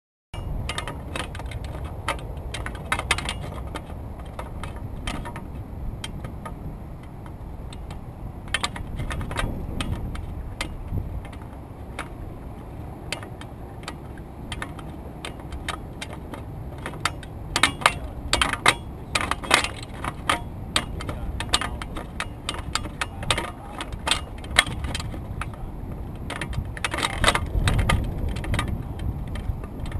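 Wind buffeting the microphone of a pole-mounted action camera, with frequent light clicks and rattles throughout that grow busier and louder in the second half.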